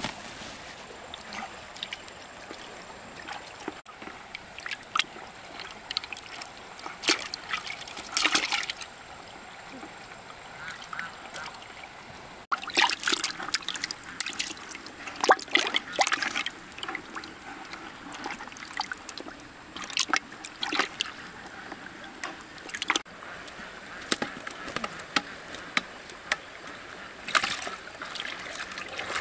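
Water splashing and sloshing in irregular bursts over a steady trickling background.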